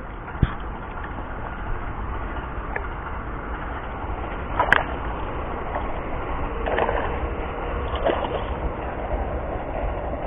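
A hooked black bass being brought to the bank and grabbed by hand: water splashing and handling noise, with a sharp knock about halfway through and a steady low rumble beneath.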